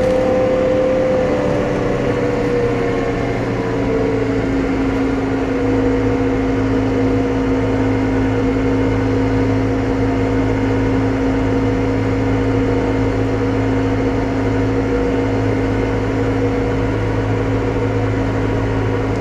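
New Holland T5.120 tractor's four-cylinder diesel engine running steadily under load, pulling a three-furrow plough at cruise speed. Its pitch drops slightly in the first few seconds as it settles, then holds level.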